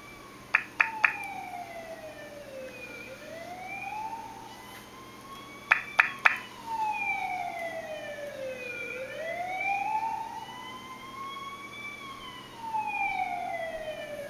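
A siren wailing, its pitch rising and falling slowly, about three seconds each way, with a basset hound howling along in long sliding howls. Two quick sets of three sharp loud pops, one near the start and one about six seconds in, are the loudest sounds.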